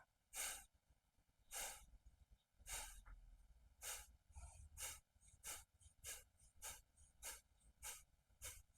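Kapalbhati breathing: a series of short, sharp, forceful exhalations through the nose, each a faint puff of air with the in-breath coming passively between them. About one a second at first, speeding up to nearly two a second from about halfway through.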